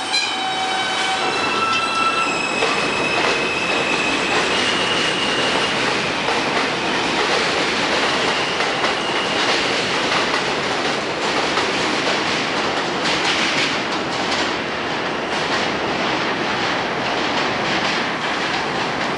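An R160A-2 subway train pulling away from the station. Its traction motors give a whine that climbs in steps over the first five seconds. After that comes the steady rolling noise and clatter of subway cars' steel wheels on the elevated tracks as trains pass through, with a second train coming in near the end.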